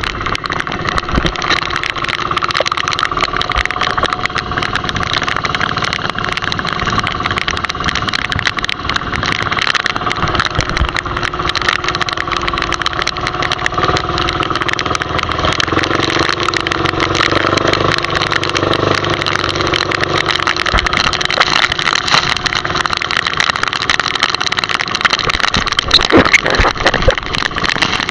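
Small fishing boat's engine running steadily at sea, with strong wind blowing over it.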